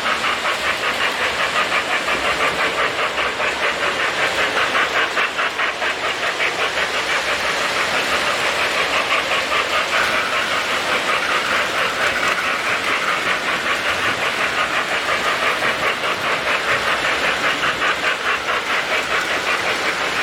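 Electric model trains running on metal three-rail track, a steady clatter of wheels on rails with an even rhythmic pulse.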